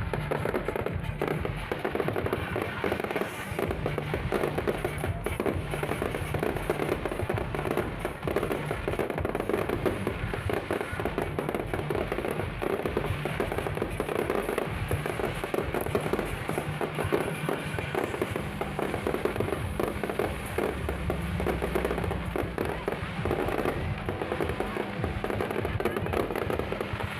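Fireworks display: dense, continuous crackling and popping of bursting shells, with music playing underneath.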